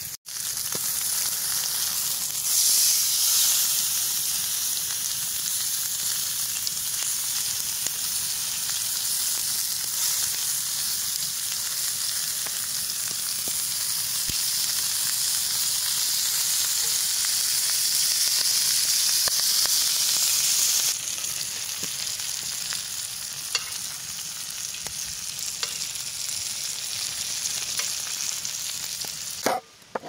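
Food sizzling steadily in hot fat as it cooks. The sizzle steps down a little about two-thirds of the way in.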